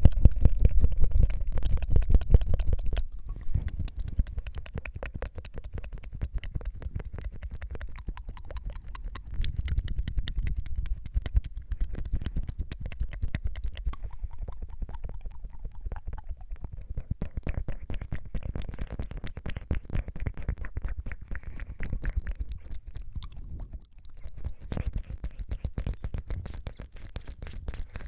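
Close-miked ASMR mouth sounds: rapid tongue fluttering and flicking, a dense run of wet little clicks. It is louder for the first three seconds, then softer.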